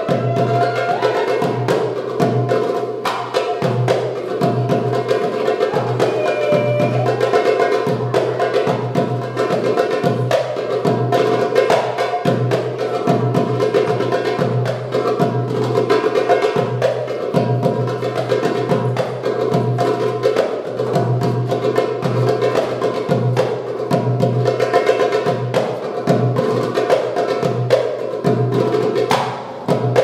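Darbuka (Egyptian tabla) played live in a fast, continuous drum solo: dense rapid strokes, deep low beats among sharp high ones.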